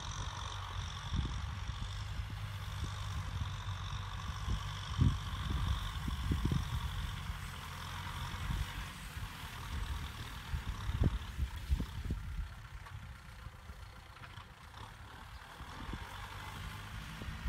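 Kubota M6040SU tractor's diesel engine running steadily under load as it pulls a disc plow through dry rice-field soil. Irregular low thumps of wind buffet the microphone.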